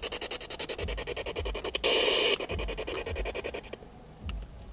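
Radio-sweep static from a ghost-hunting spirit box: a rapid, even chopping hiss with a louder burst of noise about two seconds in, cutting off shortly before the end.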